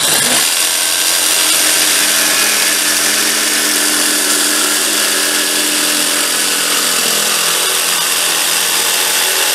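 DeWalt cordless jigsaw cutting through plywood, its blade on the straight up-and-down setting (orbital position one) for a smooth cut. It starts suddenly and runs at a steady pitch and level throughout the cut.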